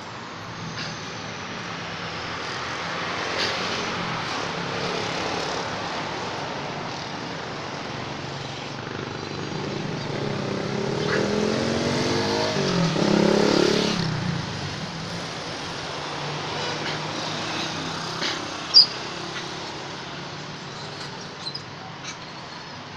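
Street traffic: a motor vehicle's engine grows louder and passes close between about ten and fourteen seconds in, its pitch shifting as it goes by, over a steady traffic hum. A single sharp click near the end.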